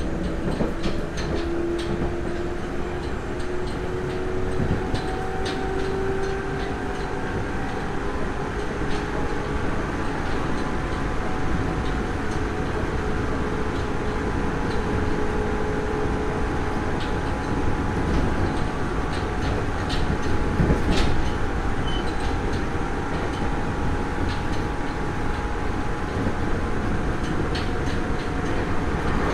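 Nagoya Municipal Subway 3000 series electric train running, heard inside the car: armature-chopper-controlled traction motors whine, rising in pitch over the first several seconds and then holding steady, over a constant wheel and track rumble. Scattered wheel clicks come over rail joints throughout.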